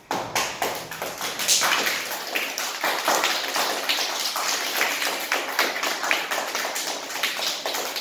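A class of young children clapping: many quick, uneven hand claps overlapping.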